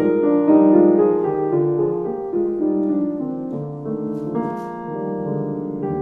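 Background piano music: a melody of single notes and chords.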